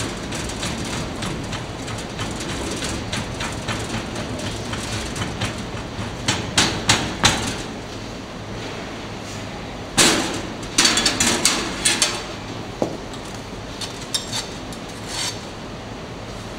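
Wooden hand rammer knocking as it packs molding sand into the cope of a metal casting flask: a run of dull knocks, with louder clusters of sharp knocks and clatter about six to seven seconds in and again around ten to twelve seconds.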